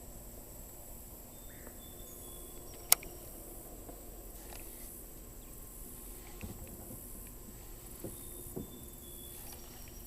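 One sharp click about three seconds in, then a few soft knocks, over a faint steady high hiss.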